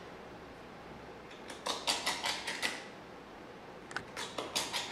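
A plumber's swivel-blade deburring tool scraping along the edge of a plexiglass plate, scoring it smooth: two quick runs of rapid scratchy strokes, one starting about a second and a half in and another near the end.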